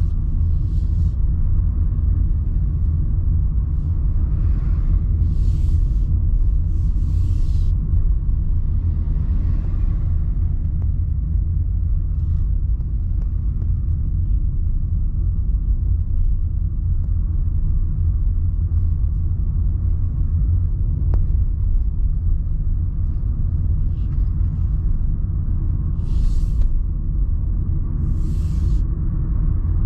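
Steady low rumble of a car driving along a street, road and engine noise heard from inside the cabin, with a few brief hisses, a couple in the first quarter and two near the end.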